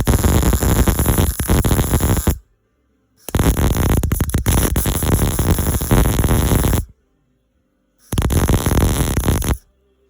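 Electric welding arc crackling and buzzing in three bursts: one running until about two and a half seconds in, a longer one of about three and a half seconds, and a shorter one near the end, each cutting off sharply. The arc is building a weld nipple onto a bolt broken off inside an LS engine's cylinder head, so that a nut can be welded to it to extract the bolt.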